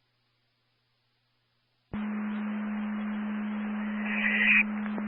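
Emergency scanner radio: about two seconds of dead air, then a transmission keys up with no words, giving static hiss over a steady low hum. A brief louder burst comes near the end before the carrier cuts off with a squelch click.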